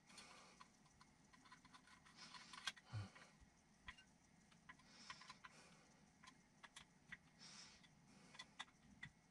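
Faint, scattered light clicks and clinks of small screws and parts being picked through in a metal parts tin, with a couple of slightly louder clicks about three seconds in.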